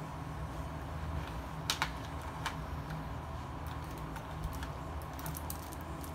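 Rotring Isograph technical pens and their plastic case being handled: a few sharp clicks about two seconds in, then a run of lighter ticks and taps later on. A steady low hum runs underneath.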